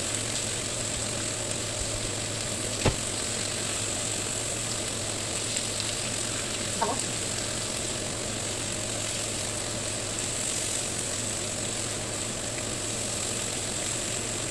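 Marinated chicken breasts sizzling steadily on a hot ridged grill pan, over a low steady hum. A single sharp click about three seconds in.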